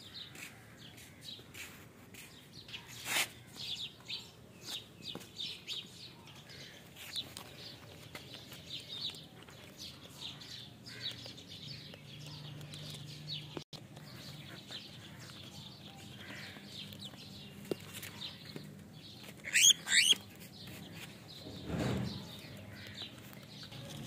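Cockatiels chirping: a quick run of short, high chirps through the first half, then two loud, shrill calls near the end.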